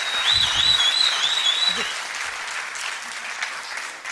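Audience applauding and cheering, with a high warbling call over the clapping for about the first two seconds; the applause then tapers off.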